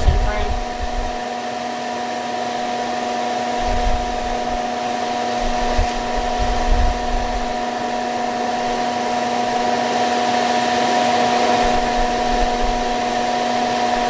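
Pelonis disc furnace electric heater running, its fan blowing air through the heated discs with a steady whir and a constant motor hum.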